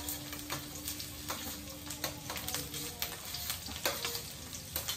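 Green chillies sizzling in hot mustard oil in a steel kadhai: a steady hiss broken by frequent irregular sharp pops and crackles.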